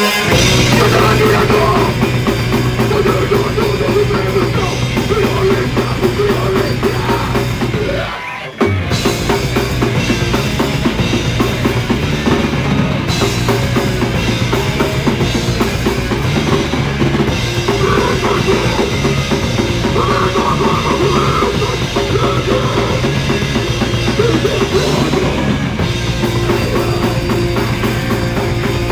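A rock band playing a song live, with a full drum kit, bass drum and electric guitars, recorded on a phone. The whole band stops for a brief moment about eight seconds in, then comes back in.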